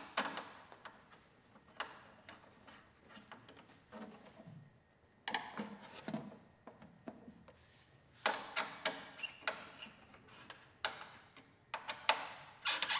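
Irregular light clicks and taps, in small clusters, from fasteners and fibreglass race bodywork being handled and fitted while a motorcycle windscreen is fastened in place.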